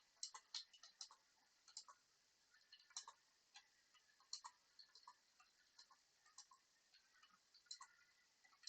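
Faint, irregular clicks of typing out a message, a few a second with uneven gaps.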